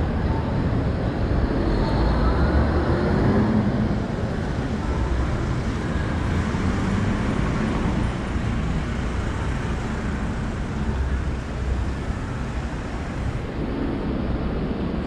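Road traffic on a busy city street: a steady rumble of passing cars, a little louder in the first few seconds.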